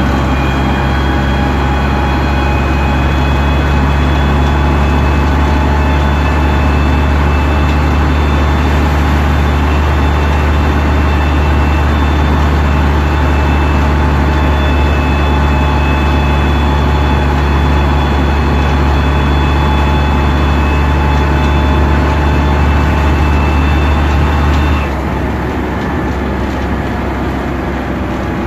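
Bristol VR double-decker bus heard from inside the lower saloon: its engine running under steady load with a steady whine from the drivetrain. About 25 seconds in, the deep engine note cuts back suddenly and the overall sound drops.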